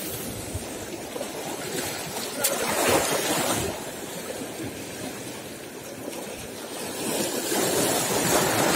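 Sea waves washing over shoreline rocks, a steady hiss that swells twice, about two and a half seconds in and again near the end.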